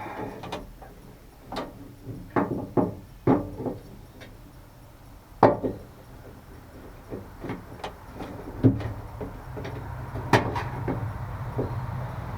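Scattered clicks and knocks of hand tools and door-handle parts being handled and fitted inside a pickup truck's door, with a quick run of knocks about two to three seconds in and single sharper knocks later. A steady low rumble comes in about two-thirds of the way through.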